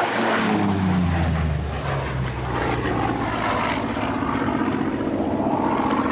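A Grumman F8F Bearcat's big 18-cylinder radial engine at full power as the fighter passes low overhead. The engine note drops sharply in pitch as it goes by, then settles to a steady drone as the aircraft climbs away.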